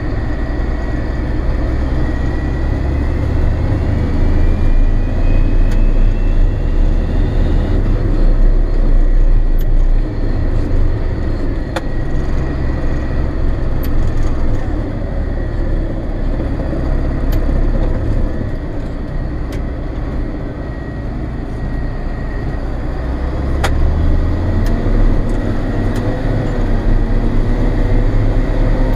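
John Deere 7800 tractor's six-cylinder turbodiesel engine running continuously, heard from inside the cab, with a steady high whine over it. A couple of sharp clicks come through, and the engine note climbs near the end.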